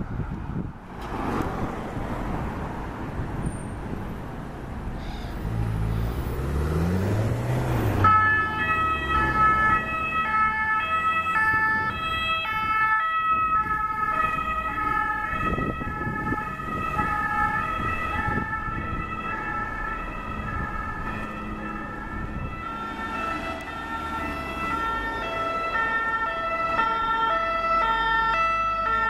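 Road traffic and a vehicle's engine revving up as it passes. About eight seconds in, an ambulance's two-tone siren starts, alternating between two pitches, and sounds on to the end as an ambulance approaches and passes.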